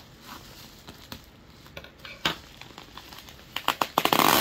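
Plastic bubble wrap crinkling and crackling as hands pull at it to unwrap a doll, with scattered clicks and a louder, dense burst of crinkling near the end.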